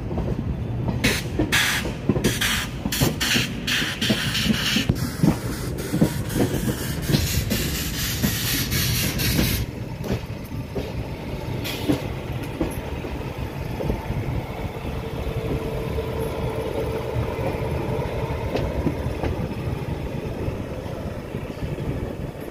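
Passenger train heard from on board as it runs into a station: a steady rumble of the coach with sharp wheel clatter over rail joints and points for the first ten seconds, then a quieter, steadier rumble.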